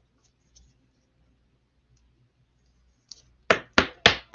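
Faint light clicks, then about a second before the end a quick, even run of sharp knocks, about four a second.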